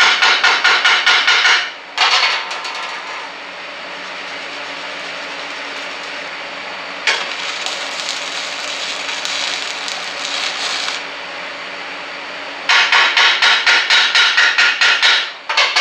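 Rapid strikes of a chipping hammer on a steel weld, then a 7018 stick-welding arc on steel box tubing at 140 amps crackling and hissing for about four seconds, starting abruptly about seven seconds in. Another run of quick hammer strikes comes near the end, about four or five a second, with a steady hum underneath.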